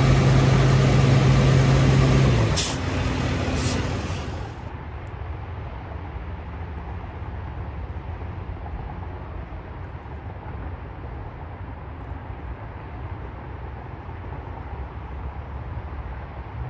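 A flatbed tow truck's engine runs with a steady, loud hum close by, then cuts out about two and a half seconds in. Two short sharp sounds follow about a second apart. After that, an even, steady rumble of distant highway traffic.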